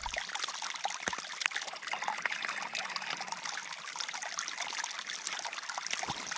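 Small forest stream trickling and babbling steadily over leaves and rocks. A low thump about a second in, and a boot stepping across the stream near the end.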